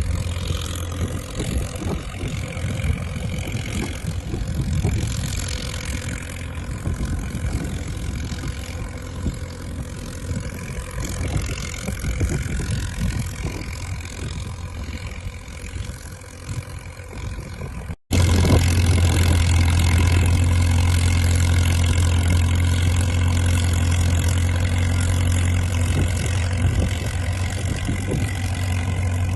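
Diesel engine of a Caterpillar crawler dozer running steadily. It cuts off abruptly about 18 seconds in, and the engine then comes back louder, with a strong low hum.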